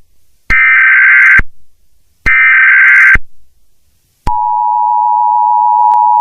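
Emergency Alert System tones: two buzzy digital header bursts, each about a second long and a second apart, then about four seconds in the steady two-note EAS attention signal begins. Together they announce an emergency broadcast message.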